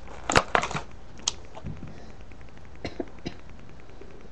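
Plastic toy packaging being handled and opened: a quick cluster of sharp cracks and clicks in the first second, then a few single clicks.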